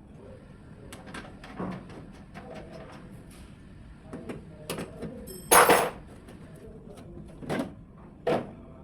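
Irregular knocks and clatter of hands-on installation work, with a louder, harsher clatter lasting about half a second a little past the middle.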